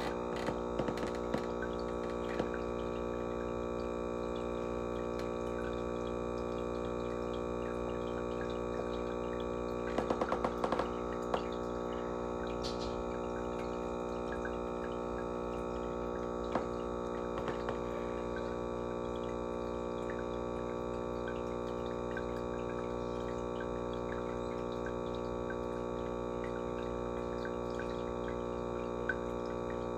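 Steady hum of aquarium equipment, with a quick cluster of light clicks about ten seconds in and a few scattered ticks.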